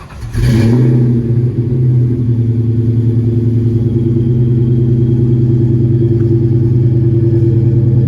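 Supercharged 4.6-litre V8 of a 2001 Ford Mustang Bullitt with Flowmaster exhaust, cold-started: it catches about half a second in and settles into a steady, loud fast idle. The supercharger's whine rides faintly over the exhaust note.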